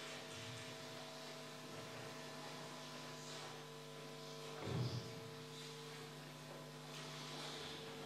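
A low, steady hum made of several held tones, with one short low thump about five seconds in.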